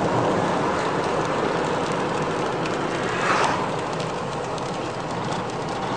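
Steady road and engine noise inside a moving car in the rain, with faint ticks of raindrops on the windshield and a brief swell about three seconds in.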